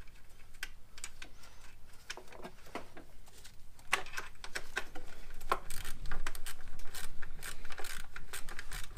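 Light, irregular metallic clicks and taps as the throttle body bolts are fitted and worked in with hand tools, coming thicker from about four seconds in.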